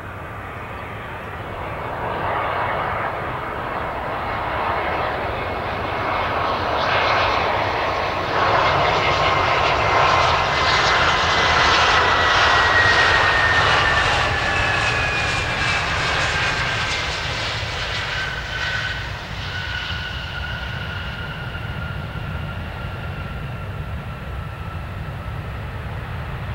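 Airbus A320 jet engines (IAE V2500 turbofans) running at landing power as the airliner approaches, passes close by and rolls out after touchdown. The rushing engine noise swells to its loudest in the middle, while the engine whine slides down in pitch as the plane goes past, then settles and eases off.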